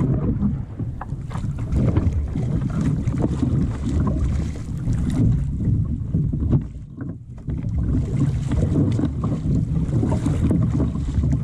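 Wind buffeting the microphone over the wash of the sea, with water splashing off a double-bladed kayak paddle as it is stroked. The wind briefly eases about seven seconds in.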